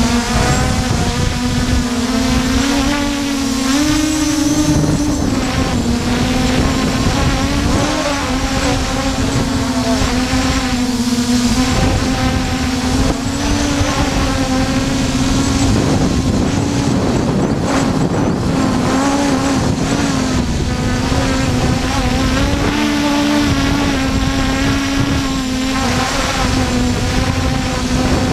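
Force1 F100 quadcopter's motors and propellers buzzing in flight: a steady hum whose pitch wavers and steps up and down as the throttle changes, over wind rumbling on the microphone.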